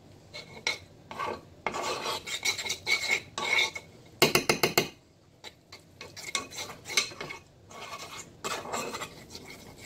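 Small metal spoon scraping and stirring around a ceramic baking dish, mixing tomato paste with olive oil: a string of short raspy scrapes, with a louder, quicker run of scraping about four seconds in.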